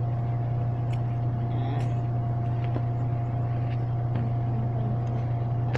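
A steady low hum with a faint higher tone, under a few faint, scattered snips and rustles of scissors cutting through denim jeans.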